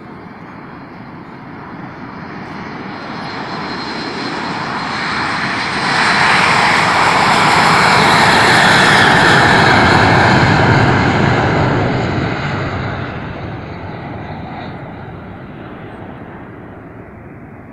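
Early Boeing 737 (-100/-200 series) jet engines at takeoff thrust as the airliner rolls down the runway past the listener. The engine noise builds for several seconds, is loudest from about six to eleven seconds in, then fades as the jet moves away.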